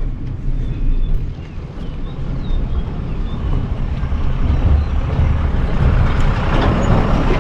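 Tata tipper truck's diesel engine approaching on a gravel road, with a low rumble under steady road noise. It grows louder over the last few seconds as the truck draws close.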